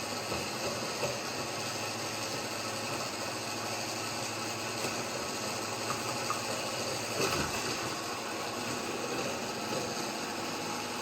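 Countertop blender motor running steadily, blending soaked dried chilies, onion and garlic with chili soaking liquid into a paste.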